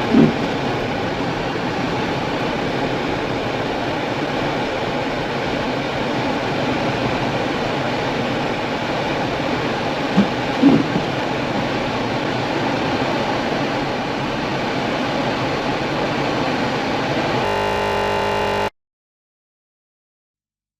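Ford Bronco driving through snow, heard from inside the cabin as a steady rush of tyre, engine and wind noise, with two brief knocks about ten seconds apart. The sound cuts off abruptly near the end.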